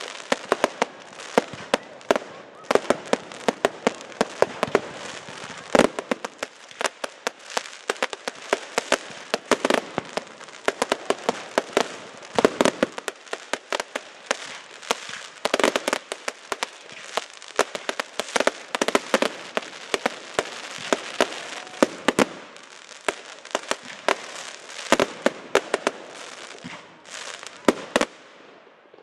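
A barrage of category 2 and 3 aerial fireworks: a rapid, overlapping stream of sharp bangs and crackling from bursting shots, thinning out near the end.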